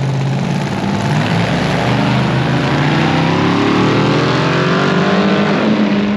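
Off-road vehicle's engine at wide-open throttle accelerating away down a drag strip, its pitch rising steadily for about four seconds, then falling sharply near the end. Another engine idles steadily underneath.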